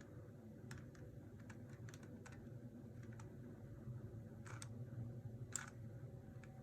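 Plastic layers of a 3x3 speed cube clicking as its faces are turned, a run of irregular clicks with two louder clacks near the end, over a low steady hum.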